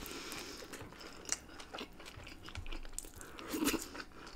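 A bite into a Beyond Meat vegan burger, then chewing close to the microphone, with small mouth clicks and a louder moment about three and a half seconds in.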